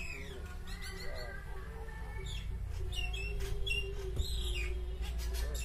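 Small birds chirping and twittering, with a steady low rumble underneath.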